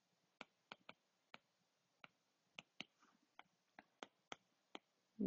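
Faint, irregular clicks of a stylus tip tapping on a tablet's glass screen during handwriting, about a dozen over a few seconds.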